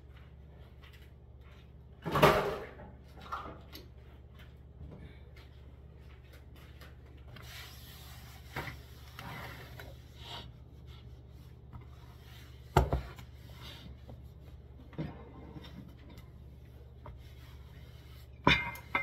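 Kitchen clean-up: things knocked and set down on a countertop and wooden cutting board, a few times, sharpest about two seconds in, past the middle and twice near the end, with a paper towel rubbing across the counter in between, over a low steady hum.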